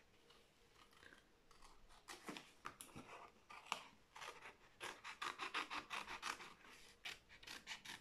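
Faint, quick scratchy rustling and clicking from a decorative flower being handled close by. It starts about two seconds in and gets busier in the second half.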